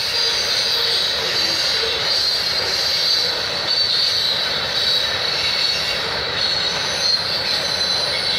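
Freight train running past, a steady rumble with a constant high-pitched squeal from the wheels on the rails.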